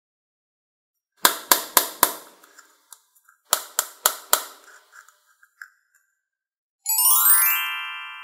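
Edited-in sound effects: two quick runs of four sharp, ringing percussive hits, then about seven seconds in a fast rising chime sweep that settles into a shimmering chord and fades, a magic reveal effect as the empty cup turns up filled with water.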